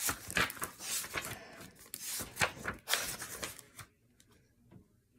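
Pages of a book being flipped and handled: a run of papery rustles and light taps that stops about four seconds in.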